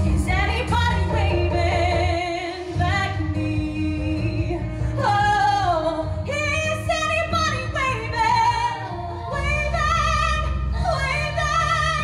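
A woman singing a musical-theatre ballad live into a microphone, holding long notes with vibrato over an instrumental backing.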